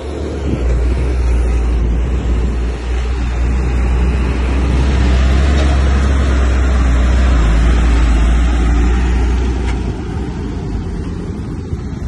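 Bulldozer's diesel engine running loud and deep under load, building up in the middle and easing off about ten seconds in.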